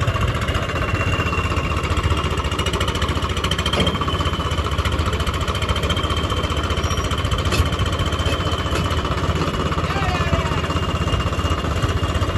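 Swaraj 855 FE tractor's three-cylinder diesel engine idling steadily, with a thin steady high whine above the engine note.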